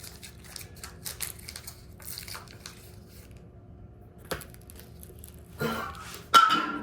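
Rustling and light clicks of hands handling piston parts. There is a sharp click about four seconds in, and two louder scraping clinks near the end, the last one ringing briefly.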